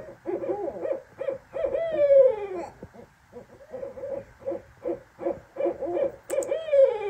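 Two barred owls calling together in runs of quick, choppy hoots. Each run ends in a long drawn-out hoot that falls in pitch, once about two seconds in and again near the end.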